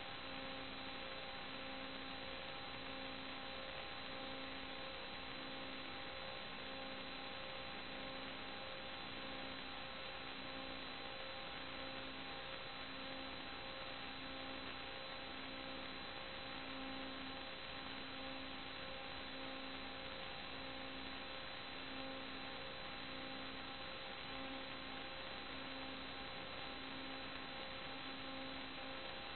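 Steady electrical hum and hiss, with several fixed tones and a low tone that pulses about once a second: electronic noise picked up in the sewer inspection camera's audio.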